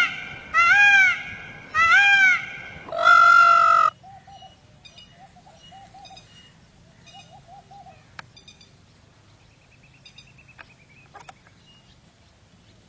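Indian peafowl calling: loud, wailing calls about once a second for the first four seconds, the last one longer and steadier. After that, only faint short calls of other birds.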